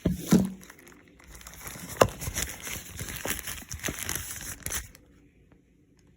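Packaging being handled and pulled open: a couple of knocks at the start, a sharp tap about two seconds in, then a few seconds of crinkling and rustling that stops about five seconds in.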